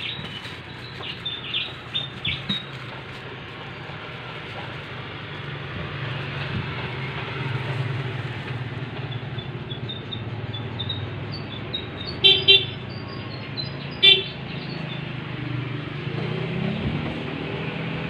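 Steady outdoor traffic rumble with short vehicle horn toots: two quick toots about twelve seconds in and one more about two seconds later.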